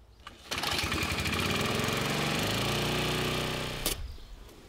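Petrol walk-behind lawn mower engine starting suddenly about half a second in and running loudly. Its pitch then drops and it fades out just before four seconds, ending in a sharp click.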